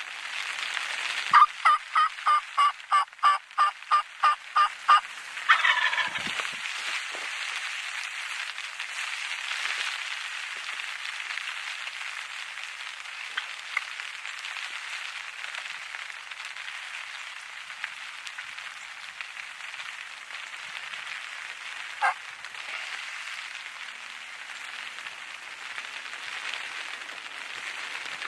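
Turkey calling: a run of about a dozen yelps at about three a second, followed by a gobble from a wild turkey gobbler, with one more short call later. A steady patter of rain runs underneath.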